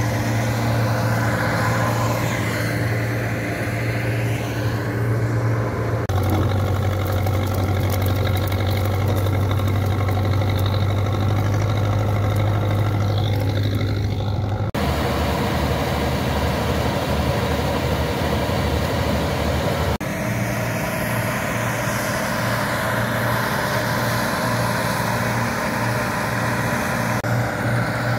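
Zetor 7211 tractor's diesel engine running steadily with a strong low hum, heard from in and around the cab. The engine note changes abruptly a few times.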